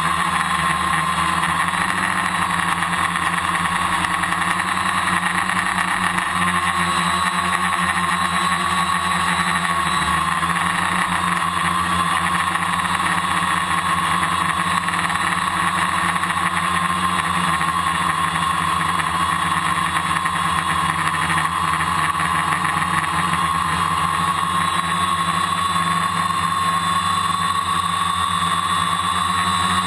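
A multirotor drone's electric motors and propellers whir steadily, heard from the camera on the drone itself. A high whine wavers slightly in pitch as the motors adjust.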